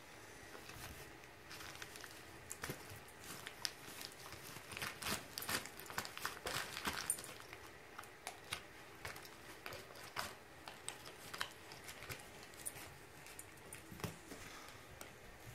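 Dog tearing wrapping paper off a present with its mouth and paws: faint, irregular crinkling and tearing rustles, busiest in the middle and thinning out towards the end.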